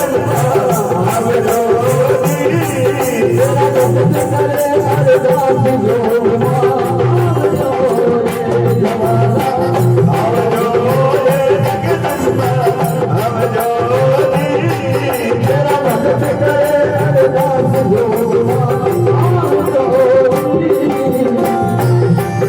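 Instrumental interlude of a Rajasthani devotional bhajan: a keyboard melody over a steady, repeating drum beat, with rattling percussion.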